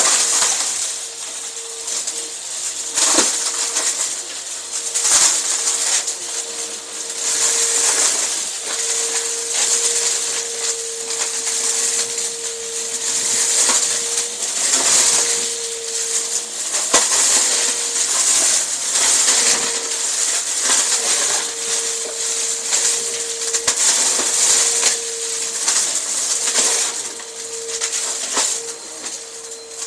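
Bissell upright vacuum cleaner running over a shag rug: a steady motor whine under a loud airflow hiss, with frequent rattling clicks and crunching as sequins, beads and other small hard debris are sucked up through the nozzle.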